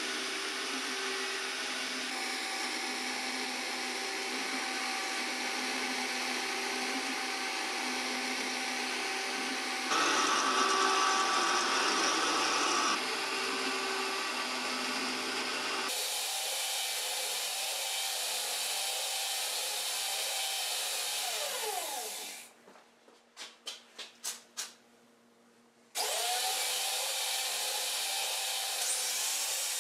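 Angle grinder fitted with a Graff Speedcutter wheel running steadily as it cuts a wooden spoke blank on a duplicating lathe, briefly louder about a third of the way in. A little past two-thirds through it winds down to near silence with a few faint knocks, then starts up again near the end.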